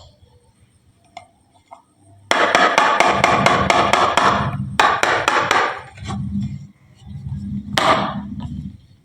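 Marbles clattering down a wooden marble-run slope: a fast run of clicks starting about two seconds in, a second shorter run, then marbles rolling with a low rumble and one more sharp clack near the end.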